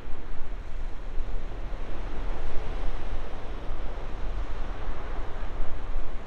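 Ocean surf breaking, heard as a continuous uneven wash of noise, with wind rumbling on the microphone.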